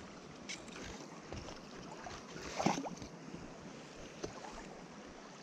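Steady rush of river water with wind on the microphone, broken by a few faint clicks and one brief louder sound a little past halfway.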